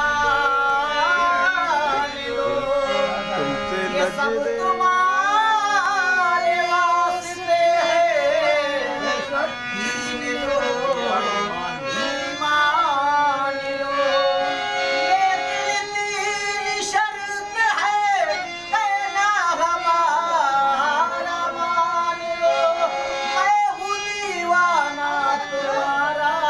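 Harmonium playing the melodic opening of a qawwali in held chords and runs, with a wordless voice gliding between notes over it.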